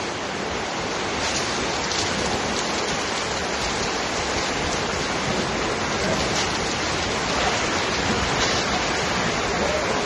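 Heavy rain pouring down steadily in a dense, even hiss.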